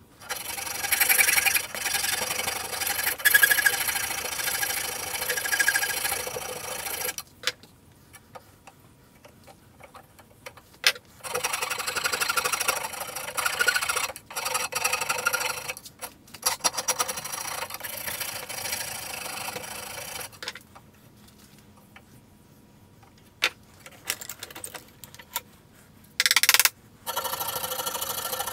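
A mesh-bladed saw rasp shaping a wooden axe handle clamped in a vise: runs of quick scraping strokes, with two pauses of several seconds in which only a few knocks are heard.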